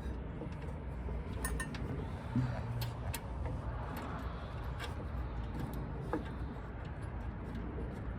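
A few light metallic clinks from a brake caliper bolt and brake hardware being handled and fitted, scattered over a steady low background rumble.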